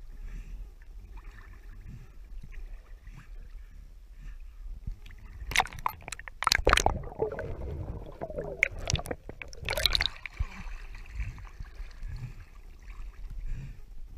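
Pool water sloshing and splashing against a camera in a waterproof case at the surface, with a cluster of sharp splashes about five to seven seconds in and another near ten seconds, and muffled gurgling between them as the camera dips under.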